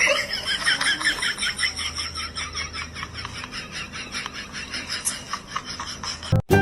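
An animal making rapid high-pitched chirps, several a second, over faint background noise.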